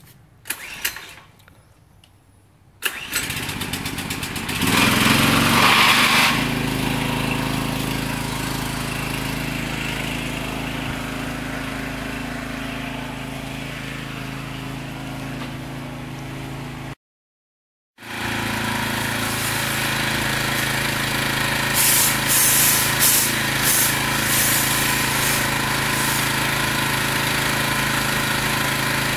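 Pressure washer engine starting: a short sound about a second in, then the engine catches about three seconds in, picks up speed and settles into steady running. Near the end, brief bursts of hiss as the lance sprays.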